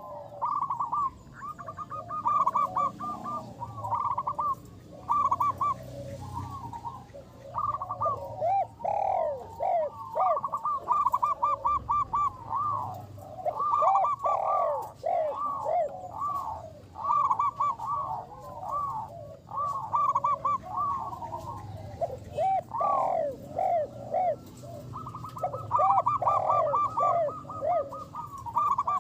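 Zebra doves (perkutut) cooing without pause in overlapping runs of short rising-and-falling notes and quick trills.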